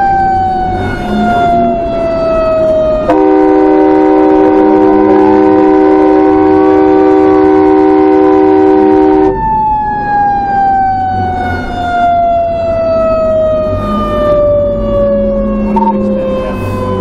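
A fire apparatus's mechanical siren winding slowly down in pitch, cut into for about six seconds by a long, loud blast of the truck's multi-tone air horn, over the low rumble of the truck's engine and road noise.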